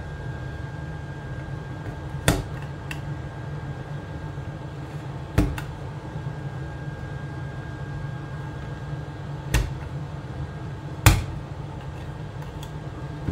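Hot-air rework station handpiece blowing steadily, a constant fan hum, while a screwdriver picks softened potting resin out of a plastic speaker housing, giving four sharp clicks spread across the stretch.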